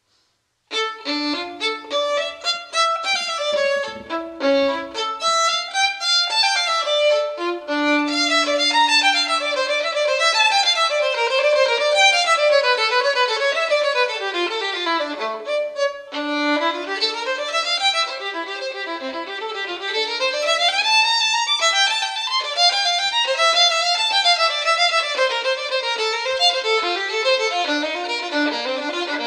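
Violin music, fast runs of notes climbing and falling, starting about a second in.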